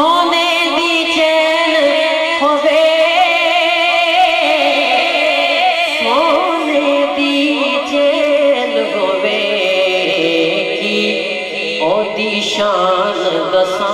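A man's solo voice singing a long, ornamented melisma in the style of an Urdu manqabat recitation, amplified through a microphone. The line wavers and glides without clear words and moves up to a higher register near the end.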